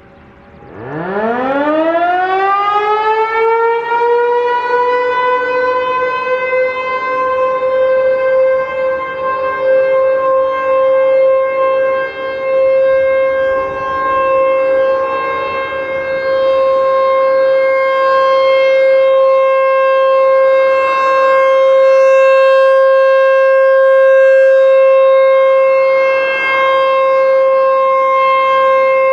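ASC T-128 electromechanical siren winding up under a second in, its pitch rising steeply over a few seconds and then holding one steady tone: the steady Alert signal. The tone's loudness rises and falls a little as the rotating horn sweeps around.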